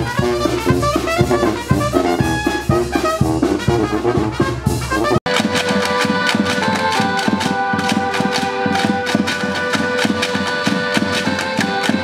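Mexican banda brass band playing: trumpets and trombones over drums. About five seconds in the sound cuts abruptly to another passage with long held brass notes over steady drum beats.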